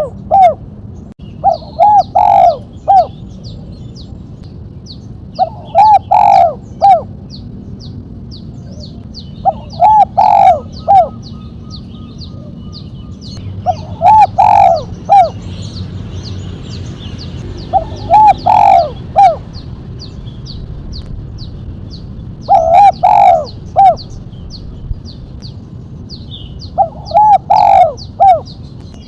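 Spotted dove (tekukur) cooing: a short phrase of a few coos, repeated about every four seconds. Faint, quick, high chirps of small birds run between the phrases.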